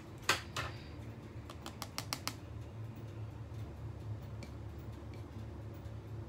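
A sharp knock as a plastic cheese grater is put down on a kitchen counter, then a quick run of light clicks and taps about two seconds in, over a low steady hum.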